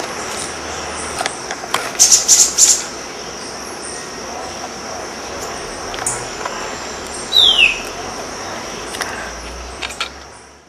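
Euphonia (gaturamo) calling: a quick cluster of sharp high notes about two seconds in, and one note sliding downward about seven seconds in, over a steady high insect buzz.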